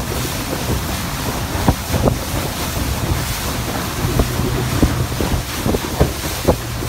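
Small wooden water taxi's outboard motor running steadily under way, a low even hum, with wind buffeting the microphone and water rushing along the hull.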